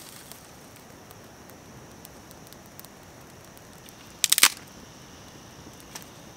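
A dry stick snapped by hand, a quick cluster of sharp cracks about four seconds in, with a small campfire crackling faintly. A steady high insect buzz runs underneath.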